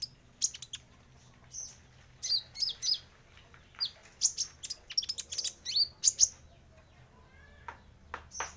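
Young brown-throated sunbird practising its song: irregular runs of sharp, high chirps and short twittering notes, with brief pauses between clusters.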